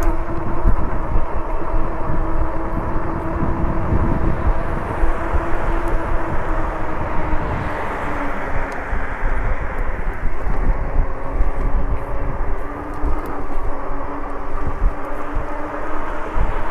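Lectric e-bike hub motor humming steadily as the bike is ridden, its pitch dipping slightly about halfway through, over wind buffeting the microphone.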